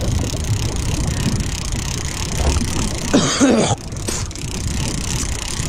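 A lever-drag conventional fishing reel being cranked in, under steady wind rush on the microphone. About three seconds in there is a short cough-like grunt.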